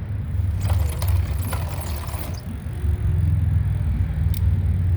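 Bicycle drivetrain running as it is spun, a steady low hum, with clicks and rattling about a second in as the rear derailleur shifts the chain across the cogs, and another click near the end. The chain noise is the one being checked for a fault, which may just be normal chain noise.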